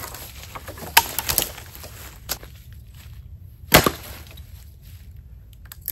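Dead eastern red cedar wood cracking and snapping as it is broken up: a few sharp, separate cracks, the loudest about four seconds in.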